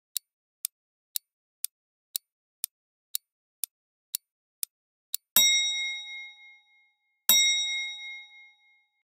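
Countdown timer sound effect ticking about twice a second, then two ringing bell-like dings about two seconds apart, marking that the time is up.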